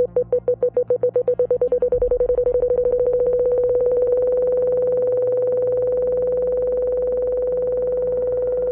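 A synthesized beep of one pitch, each beep counting a century, repeats at about four a second and speeds up until the beeps run together into one continuous steady tone by about four seconds in. A faint low synth drone sits underneath.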